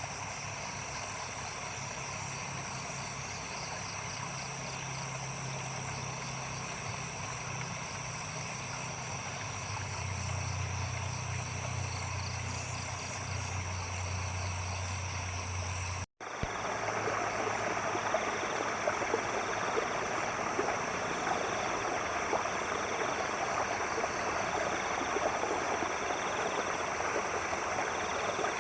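A night chorus of insects holding steady high shrill tones, with a low droning hum that grows stronger after about ten seconds. Past the middle the sound cuts out for an instant, then comes back as a rushing, splashing stream, with insects still chirping in a regular pulse above it.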